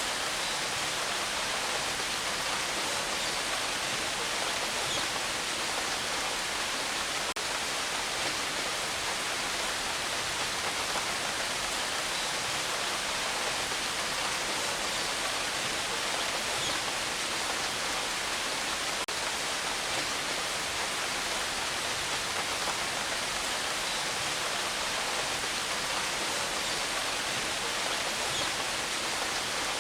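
Steady rain falling, an even hiss with no thunder and only a couple of faint ticks.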